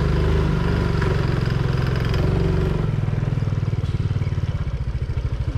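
Motorcycle engine running as the bike is ridden. About halfway through the revs drop and the engine settles into a slow, even putter.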